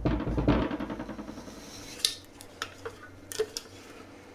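Spatula scraping cake batter out of a stainless-steel Thermomix mixing bowl, followed by several sharp taps of spatula on bowl.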